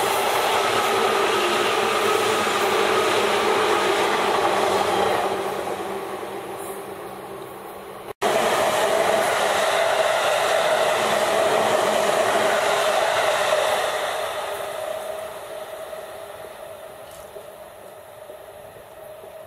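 An orange 201 series electric train passes close by with a steady rumble and rail noise that fades away after about five seconds. After a cut near eight seconds, another electric train passes loudly with a steady tone in its running noise, fading out from about fourteen seconds.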